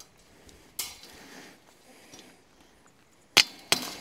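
A hammer striking a steel T-post twice in quick succession near the end, sharp metal blows that begin a run of strikes bending the post's tabs over welded-wire fencing to lock it in place. A brief rustle about a second in.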